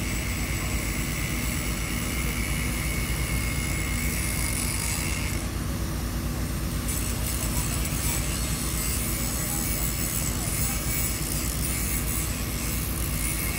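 Truck-mounted mobile crane's diesel engine running steadily.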